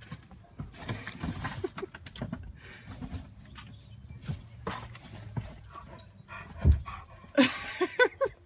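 Great Pyrenees dog clambering about inside a minivan: rustling and knocks against the seats, with one heavy thump about two-thirds of the way through. Near the end comes a quick run of short whining calls.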